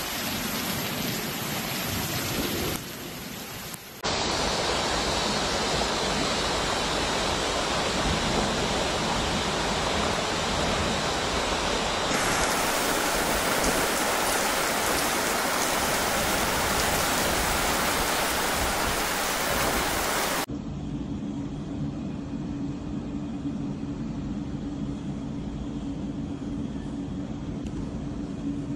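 Heavy rain and rushing floodwater, a steady hiss that changes abruptly several times as one clip cuts to the next. In the last stretch it is quieter, with a low steady hum underneath.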